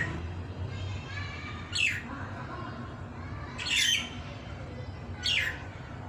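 Myna giving short, harsh squawks about every two seconds, each call sliding down in pitch.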